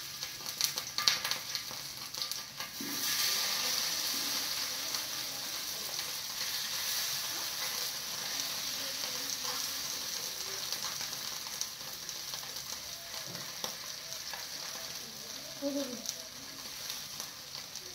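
Pieces of flour-coated fish sizzling as they fry in hot oil, the sizzle growing louder about three seconds in, with light clicks of a metal spatula working the pan.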